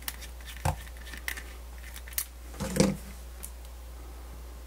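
A handful of sharp clicks and knocks from cheap multimeter test leads being handled: banana plugs pushed into a Fluke 87 multimeter's jacks and the probe tips touched together. The loudest is a short cluster about two and a half seconds in.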